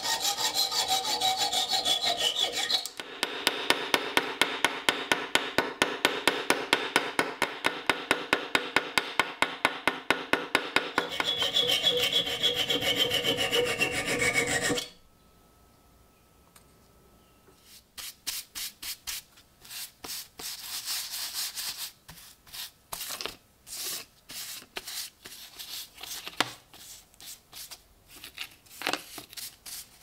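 A hand tool rasping back and forth on a metal bar clamped in a vise, about three strokes a second, with a ringing pitch that drops near the start and again just before the strokes stop, about halfway through. After a short quiet, lighter, irregular scrubbing strokes.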